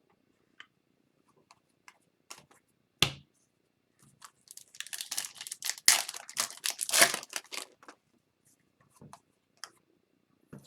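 Hockey card pack's foil wrapper being torn open and crinkled: a few seconds of dense tearing and crackling in the middle. Before it comes a single sharp tap about three seconds in, with scattered light clicks around it.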